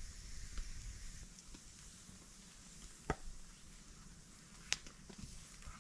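Small wood campfire crackling quietly, with two sharp pops, one about three seconds in and one nearer five.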